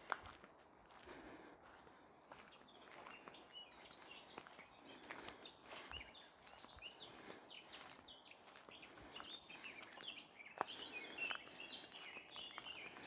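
Faint birdsong: many small birds chirping and twittering, busiest in the last few seconds. Now and then footsteps crunch on a gravel track.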